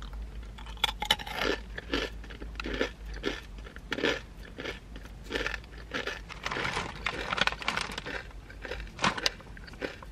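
Garlic murukku, a hard, very crunchy rice-flour snack, being bitten and chewed: a steady run of sharp crunches, two or three a second.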